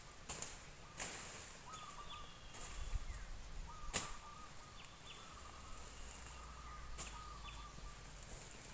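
A sickle cutting goat fodder: sharp cracks at three strokes about three seconds apart, the middle one loudest. Behind them a bird calls over and over in a short warbling phrase.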